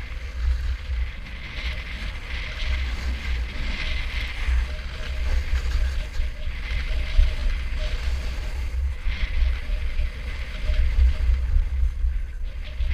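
Wind buffeting the microphone of a board-mounted or body-worn camera during a snowboard descent, a gusty low rumble over the steady hiss and scrape of the snowboard sliding across packed, groomed snow.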